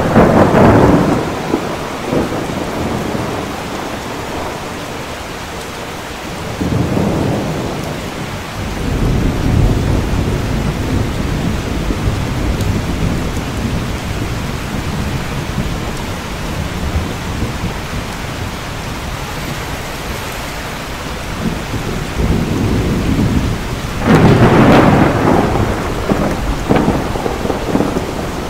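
Steady heavy rain with several rolls of thunder. A loud rumble comes right at the start, others around seven and ten seconds in, and another loud one near the end.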